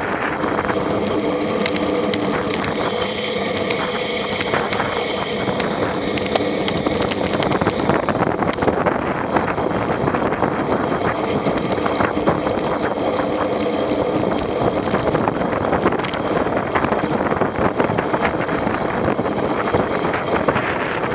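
A vehicle engine running steadily under wind noise on the microphone, with many small knocks and rattles.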